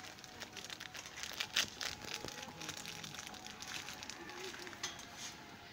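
Plastic food packaging crinkling and rustling as it is handled, with a cluster of sharp crackles about a second and a half in. Faint voices sound behind it.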